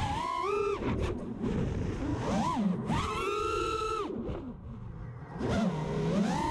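The four brushless motors and propellers of a 5-inch FPV racing quadcopter (DYS Fire 2600kv motors) whining, the pitch rising and falling as the throttle is punched and eased off. The whine holds high for about a second around the middle, dips quieter a little past halfway, then climbs sharply again near the end.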